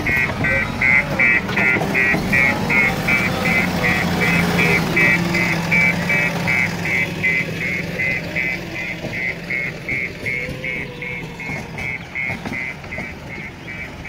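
Backhoe loader's reversing alarm beeping steadily, about three beeps a second, over the low running of its diesel engine.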